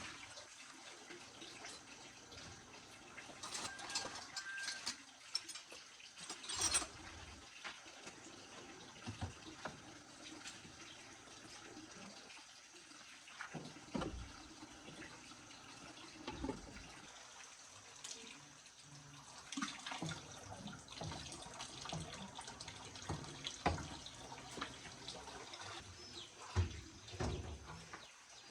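Washing machine being worked on by hand: scattered clicks and knocks of parts and tools being handled, over a steady hiss.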